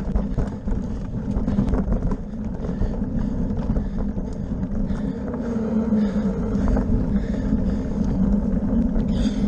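Bicycle ridden fast over a dirt path and then cobblestones, heard from a handlebar-mounted camera: a steady rumble and rattle of tyres and frame, with wind buffeting the microphone.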